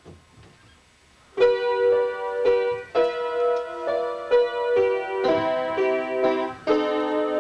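Quiet for about a second and a half, then solo piano music begins: slow single notes and chords, each struck and left to ring.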